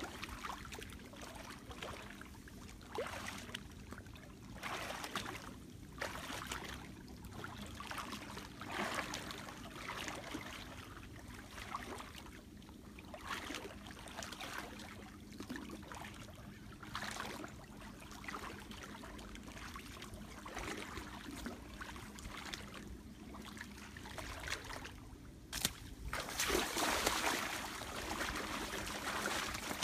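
Wading footsteps through shallow water and wet grass, a watery swish about every second. Near the end a sharp snap, then a few seconds of louder rustling and splashing in the grass.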